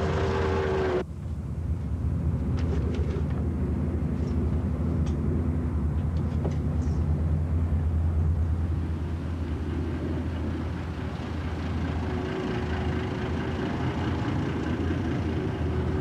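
Double-decker bus engine running on the move, a steady low drone. The sound changes abruptly about a second in, and a few faint clicks and rattles follow.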